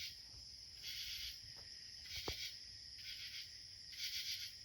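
Crickets chirping, a steady high trill swelling in pulses about once a second. A single sharp click sounds a little over two seconds in.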